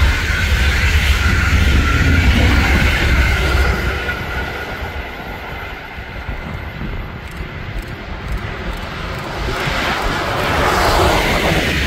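Electric-locomotive-hauled passenger train running past with a heavy rumble and a steady high whine, fading to a quieter stretch about five seconds in. A second electric-hauled passenger train then approaches, growing louder near the end.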